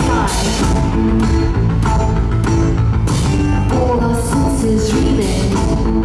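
Live rock band playing: a drum kit keeps a steady beat under sustained keyboard chords.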